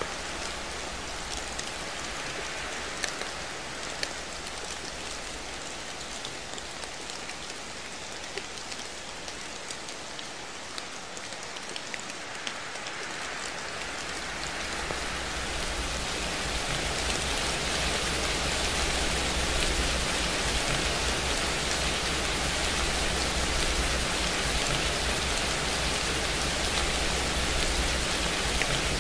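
Steady rain: an even hiss of falling drops with scattered single drop ticks, growing louder about halfway through.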